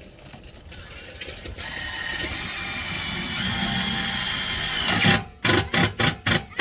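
Power drill driving a pan-head screw: the motor runs steadily with a whine for about three seconds, then gives five or six short bursts near the end as the screw is seated.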